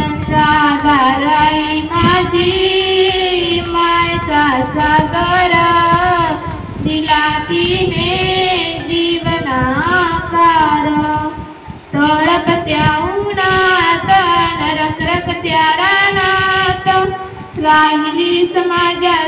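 A schoolgirl singing a song solo into a handheld microphone, in long held melodic lines, with short breaks about twelve seconds in and near the end.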